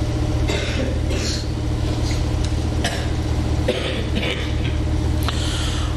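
A steady low rumble with a few faint breathy, rustling hisses over it.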